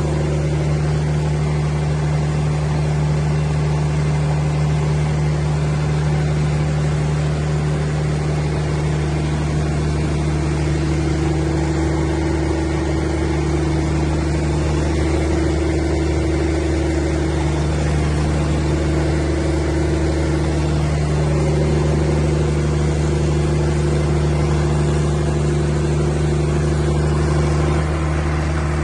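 180 kVA Cummins open-type diesel generator set running at a steady, constant speed: an even engine drone whose pitch does not change.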